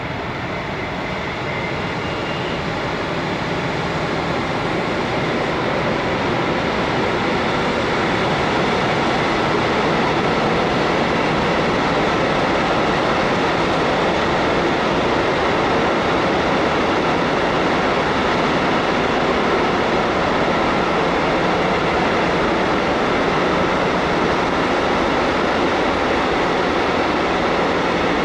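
A long freight train of covered hopper wagons, hauled by a DB class 151 electric locomotive, rolls past with a steady rumble of wheels on rail. The sound swells over the first several seconds and then holds steady as the wagons keep coming.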